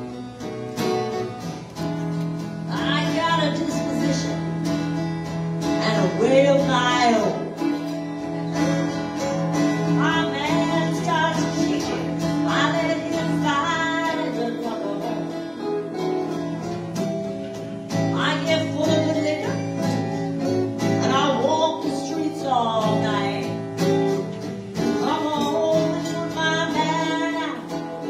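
Two acoustic guitars playing a blues accompaniment, with a woman singing over them in phrases a few seconds long, her voice sliding between notes.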